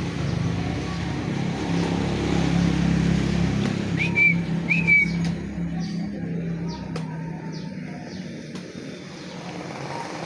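A motor running steadily, fading out about two-thirds of the way through, with two short high bird chirps about four and five seconds in.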